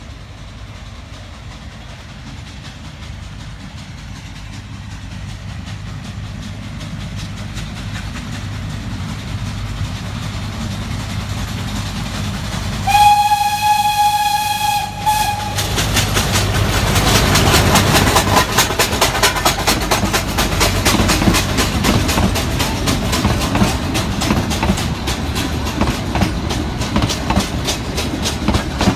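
Nilgiri Mountain Railway steam train approaching with a low rumble that slowly grows louder. Its whistle sounds once for about two and a half seconds about halfway through. The train then passes close by with a loud, rapid clattering that eases slightly near the end.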